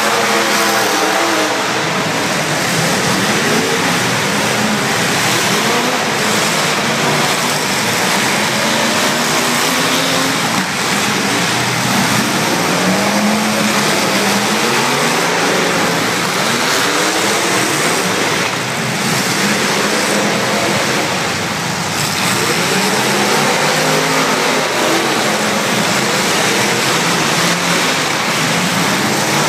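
Several demolition derby cars' engines running and revving together, their pitches rising and falling and overlapping over a dense, loud din. There are a couple of brief knocks in the second half.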